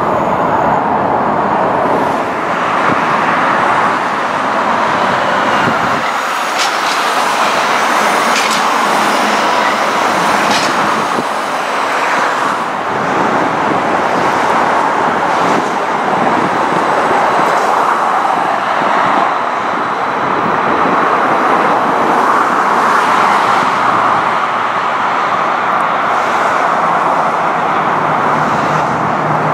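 Steady hiss of traffic on a busy multi-lane road, mixed with Calgary C-Train light rail cars running on the track beside it. A few faint clicks come about seven to eleven seconds in.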